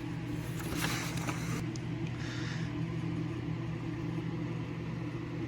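Steady low hum in the room, with soft rustling of paper as the smoke alarm's manual is handled, about a second in and again about two seconds in.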